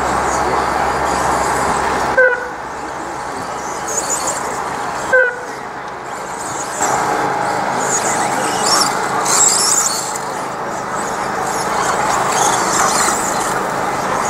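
Radio-controlled 1/10-scale electric stadium trucks racing round an off-road track: a steady high whir of motors and tyres. Two short sharp blips come about two and five seconds in.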